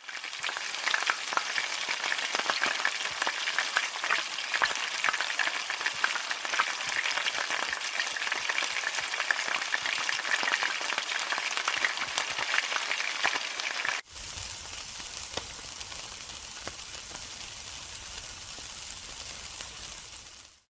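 Food deep-frying in hot oil in a wok: a dense, crackling sizzle full of sharp pops. About two-thirds of the way through it cuts to a quieter, steadier sizzle of meat skewers cooking on a grill.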